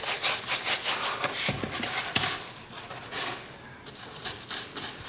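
Stiff paintbrush scrubbing paint onto a rigid foam board cutout in quick back-and-forth strokes, about three or four a second. The strokes thin out past the middle and pick up again near the end.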